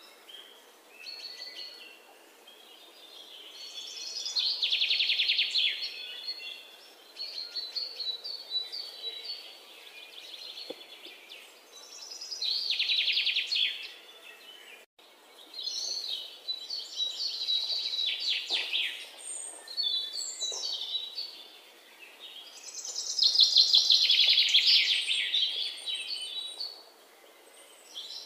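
Songbirds chirping, with a loud rapid trill every several seconds between softer chirps.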